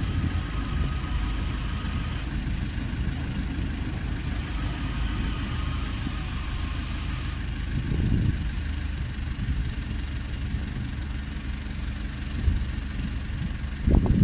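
DART electric commuter train rolling past over a level crossing: a steady low rumble of wheels on rail, with a faint higher whine in the first couple of seconds and a heavier thump about eight seconds in.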